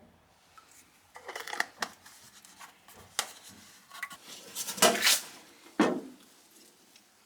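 Hard objects being handled: a few irregular clinks, knocks and scrapes, the loudest about five seconds in, followed by a sharp knock.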